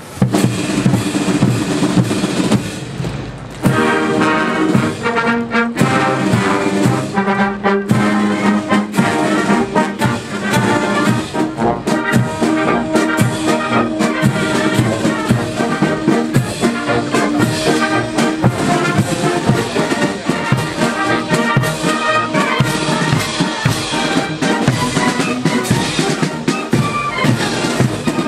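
Military brass band playing a march, trumpets and trombones over a steady drumbeat, with a short break about three seconds in.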